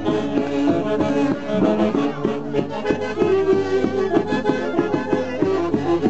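Andean orquesta típica dance music: wind instruments playing a melody over a steady, regular beat.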